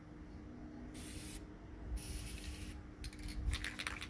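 Aerosol spray-paint can hissing in two bursts, a short one about a second in and a longer one after it. A fast clicking rattle starts near the end.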